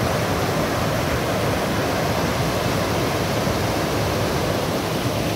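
Mountain stream rushing over boulders, a loud, steady rush of water with no let-up.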